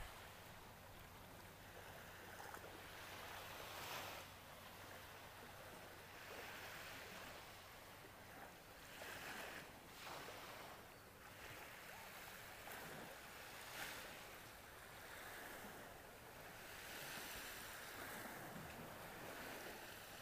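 Faint wash of a calm sea with a light breeze, swelling and easing every few seconds, with a few soft ticks.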